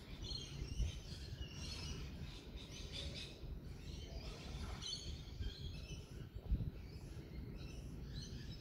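Faint bird chirps over a low background rumble, with a soft knock just before a second in and another about six and a half seconds in.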